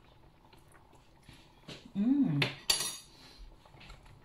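A metal spoon lightly clinking against a stainless steel cooking pot while a person tastes the food. About two seconds in comes a short appreciative hummed 'mmm' that rises then falls in pitch, with a brief sharp noise right after it.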